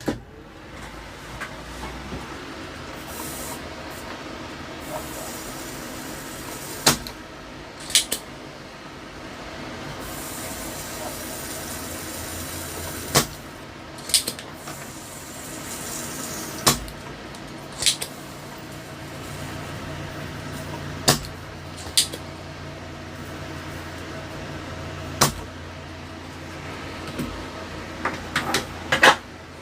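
Electric fans running with a steady whooshing hum, while sharp clicks and taps of work on the amplifier come every second or few, bunched together near the end.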